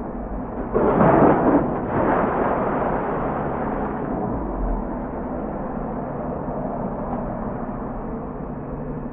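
Heavy machinery running with a steady low rumble, with a loud rough crash about a second in.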